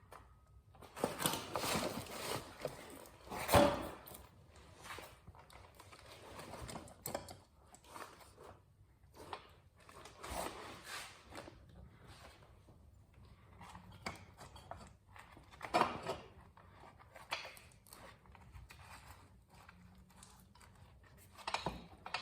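Scattered knocks, clicks and scrapes of hand tools and metal parts being handled during work on a motorcycle's rear wheel assembly, the sharpest knock about three and a half seconds in.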